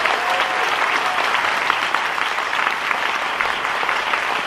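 Theatre audience applauding steadily, a dense round of many hands clapping at once.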